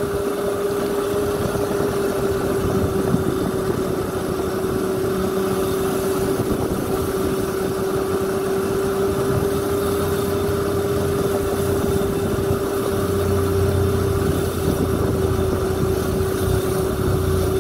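Electric motorbike running on Makita tool batteries, riding at a steady speed: one steady motor whine over a rough low rumble of road and wind noise, the rumble growing a little louder about two-thirds of the way in.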